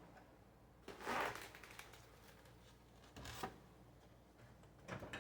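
Two brief rustling, scraping handling sounds, about a second in and again about three seconds in, over faint room tone.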